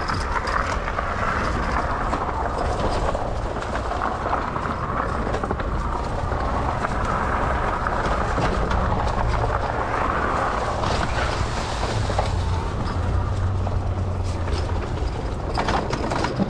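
Steady rolling noise of a Lectric XP e-bike being ridden, with wind on the microphone.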